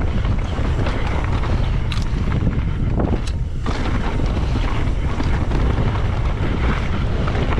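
Strong wind buffeting the microphone, a loud steady rumbling rush, with a couple of brief clicks about two and three seconds in.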